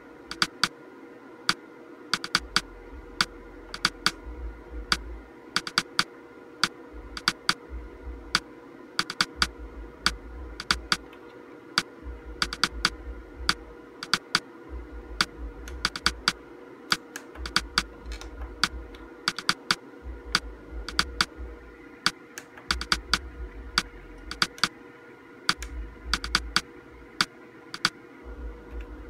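Front-panel buttons of a Samsung monitor clicked over and over in short runs of two to four, stepping through the on-screen menu's horizontal and vertical position settings. A faint steady whine runs underneath.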